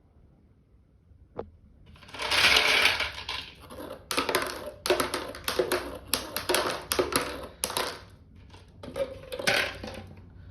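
Marbles rolling and clattering down a toy marble-run track: a dense rattle of many small clicks and knocks that starts about two seconds in after a single click, with a short lull and a last burst near the end.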